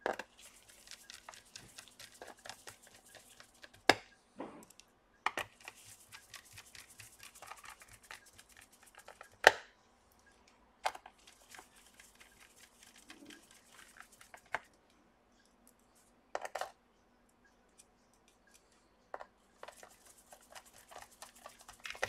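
Small screws being driven by hand into a laptop's bottom cover with a precision screwdriver: spells of fine scratchy clicking as the bit turns in the screw heads, broken by a few sharp clicks.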